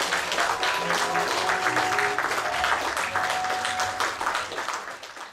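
Audience applauding over the closing notes of baroque allemande music, the sound fading out near the end.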